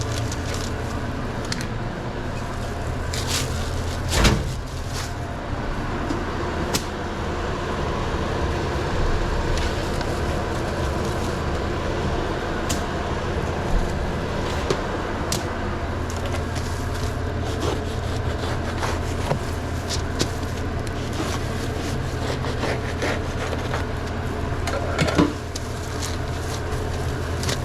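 Steady low hum of restaurant kitchen equipment, with scattered clicks and knocks from food-prep handling behind a sandwich counter; a loud knock comes about four seconds in and another near the end.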